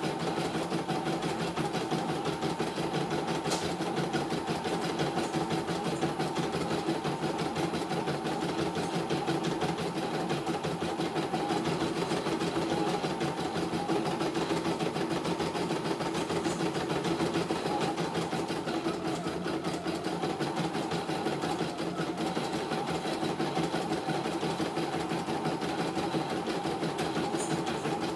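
CNY E900 computerized embroidery machine stitching a design: the needle runs in a fast, even rhythm while the embroidery unit moves the hooped fabric, the machine working smoothly.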